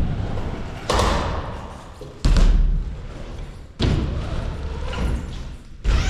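BMX bike riding ramps, a series of heavy thuds as the wheels land and hit the ramp surfaces, five in about six seconds. Each thud is followed by a short fading rumble and echo.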